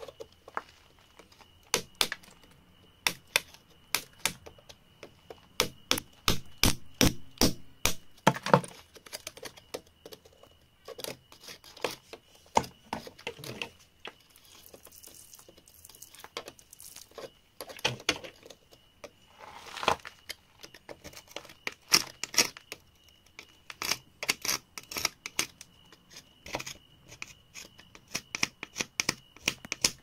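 A flat metal pick scraping and chipping at packed dirt and gravel around an embedded stone, in a long run of sharp clicks and scratches. About halfway through there is a brief hiss of water spraying over the stone.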